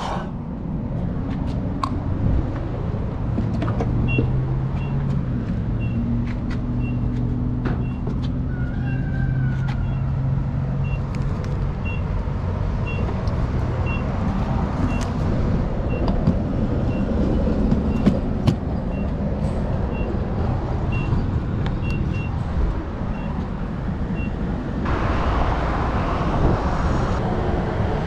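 Jeep engine and road noise while driving, the engine pitch climbing over the first ten seconds as it gathers speed. A regular high tick, about three every two seconds, runs through most of it, and a couple of seconds of hiss come near the end.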